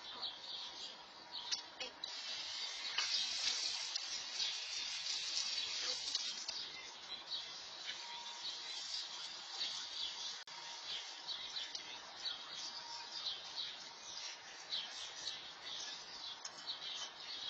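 Steady outdoor chorus of many small high-pitched chirps from insects and birds, louder for a few seconds near the start.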